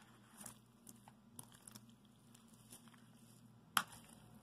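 Fork turning raw chicken pieces in a plastic bowl: a few faint clicks and knocks, with one sharper click near the end.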